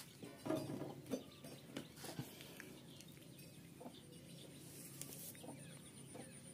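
Faint, scattered clicks and taps of plastic bottles and a fuel-tank cap being handled, mostly in the first two seconds.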